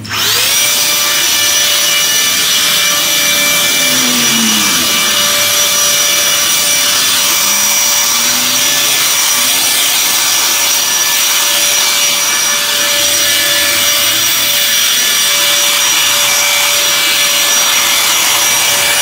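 Kaltmann Titanium KTI-ODL2X20V 40V cordless brushless leaf blower switched on and running steadily at speed: the motor spins up right at the start, then holds a constant whine over the rush of air from the nozzle.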